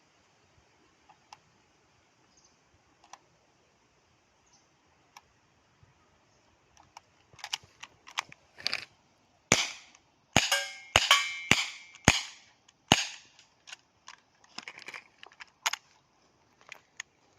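ASG Dan Wesson 2.5-inch CO2 airsoft revolver firing six sharp shots in a row, about half a second apart. Lighter clicks and knocks come before and after the shots.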